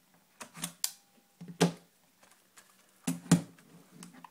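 Short sharp clicks and knocks of the Acer Aspire One netbook and its parts being handled on a hard surface: a scattering of taps, the loudest about a second and a half in and again around three seconds in.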